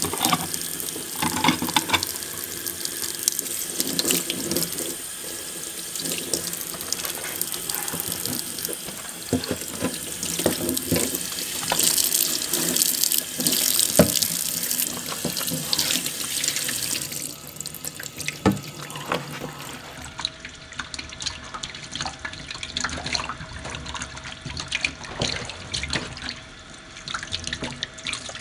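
Kitchen tap running into a stainless steel sink as fresh chicken eggs are rinsed and rubbed by hand under it, with light clicks and knocks as the eggs are handled. About two-thirds of the way through the water dies down, leaving wet handling sounds of eggs being picked up from the sink.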